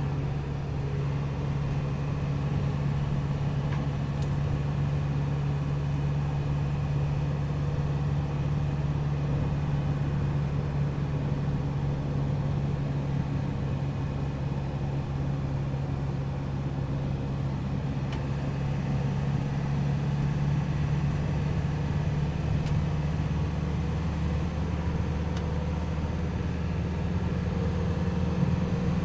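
Isuzu truck's diesel engine running steadily at highway cruising speed, heard inside the cab with road and tyre noise. The engine note rises slightly near the end.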